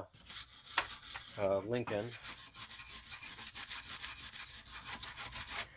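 Fast, even back-and-forth rasping strokes of a hand tool rubbing down a metal headlight ring, starting about two seconds in and running on steadily.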